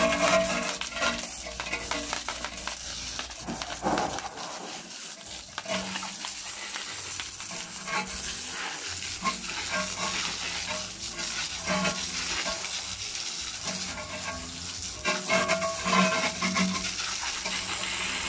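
Pressure-washer jet hitting an alloy wheel and tyre, a steady hissing spatter as cleaner is rinsed off, with a pitched hum coming and going. The spray stops abruptly at the very end.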